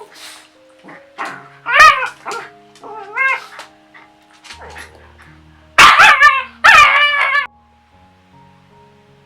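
A dog barking and yipping in short bouts, the loudest run of barks a little past halfway, over soft background music.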